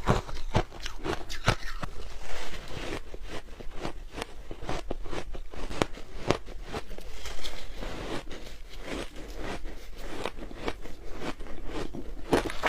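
Ice being bitten and chewed close to the microphone: a dense, irregular run of sharp cracks and crunches, several a second.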